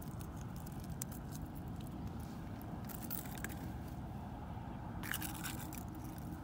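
Scattered small crunchy clicks and scrapes from a baby macaque chewing food and moving over rocks, over a steady low rumble. A cluster of louder clicks comes about five seconds in.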